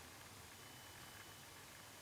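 Near silence: a faint, steady hiss of room tone.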